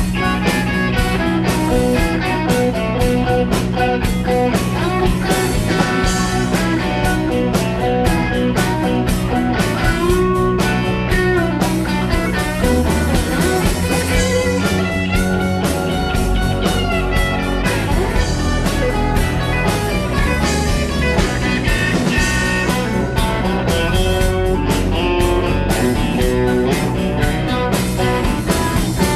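Live blues-rock band playing without vocals: an electric guitar lead over bass and drums, with steady drum hits throughout.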